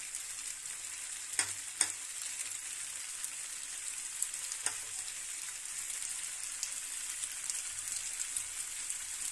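Spiced macaroni sizzling steadily in a steel pan over a gas flame. A few sharp clicks come about a second and a half in, again just after, and near the middle.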